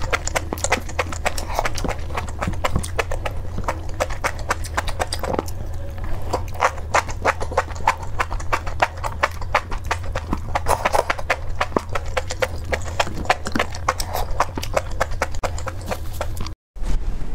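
Close-miked wet chewing and mouth smacking on a mouthful of enoki mushrooms in chili oil: rapid, irregular clicks many times a second. The sound cuts out briefly near the end.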